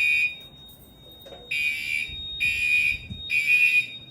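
Gentex Commander fire alarm horn strobes sounding the temporal-3 evacuation pattern, a harsh high buzzing tone. One blast ends just after the start, there is a pause of about a second, and then three short blasts follow in quick succession, during a fire alarm system test. A faint steady high tone continues underneath.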